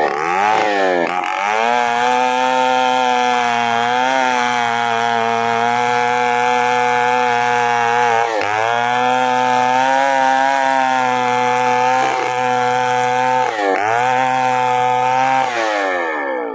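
Chainsaw engine revving up and running at high speed. Its pitch sags briefly a few times as the chain bites into the wood, then winds down near the end.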